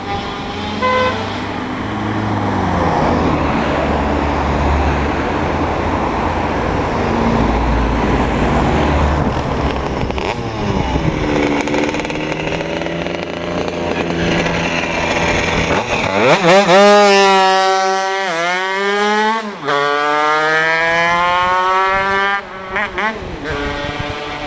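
Cars go by on the road with a broad tyre-and-engine rumble. From about two-thirds of the way in, a two-stroke Vespa engine with a PVL racing ignition revs hard through the gears. Its pitch climbs, then drops at each of three gear changes.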